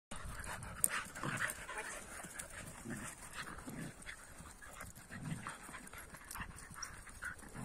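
Several dogs play-fighting, giving a few short low growls amid panting and scuffling.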